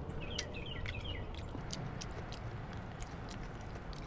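Eating sounds: chewing with small wet mouth clicks while rice is eaten by hand. A bird chirps a quick run of short high notes in about the first second, over a steady low outdoor background.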